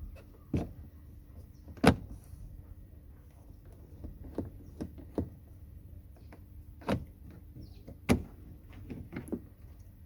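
Mercedes car door handle being worked loose and pulled out of the door: a string of sharp clicks and clunks, the loudest about half a second, two, seven and eight seconds in, with lighter clicks between.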